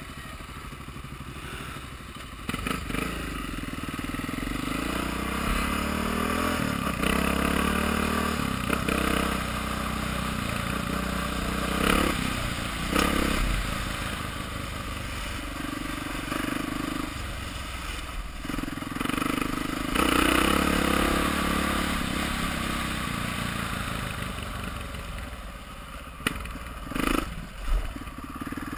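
Dirt bike's big single-cylinder four-stroke engine (a Honda XR650R) accelerating hard up through the gears, its pitch climbing in steps with brief breaks at the shifts, heard from a helmet camera with wind and trail noise. A few sharp knocks near the end.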